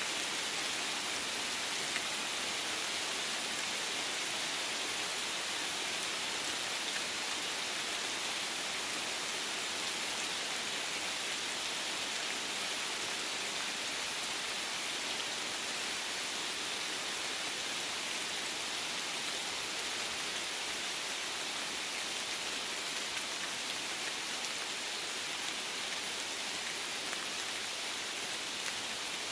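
Steady rainfall in woodland: an even, unbroken hiss of drops falling on leaves.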